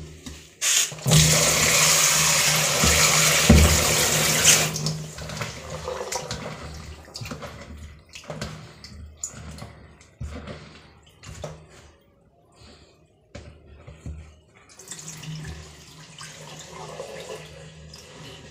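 Kitchen tap running into a plastic bowl of split lentils (dal) in a steel sink for a few seconds, then a hand swishing and rubbing the dal in the water with small splashes. Near the end the rinse water is tipped out into the sink.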